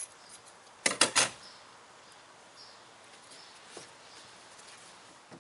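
Pre-cut 12-ounce fiberglass tape being handled and laid into a fiberglass canoe hull: a quick cluster of three short rustles about a second in, then faint scattered rustling.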